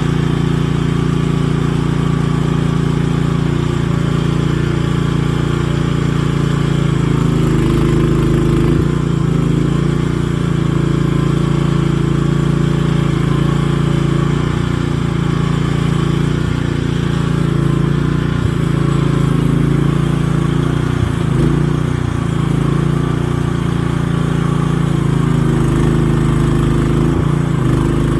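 An engine running steadily at an even speed, with slight changes in pitch.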